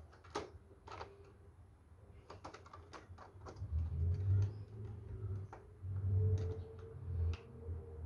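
Light clicks and taps of plastic model-building parts being handled and fitted together, with two low dull rumbles, one around the middle and one near the end.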